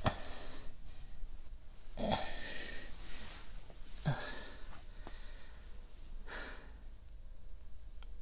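A man's breathing close to the microphone: four slow breaths about two seconds apart, the second and third with a soft voiced sigh.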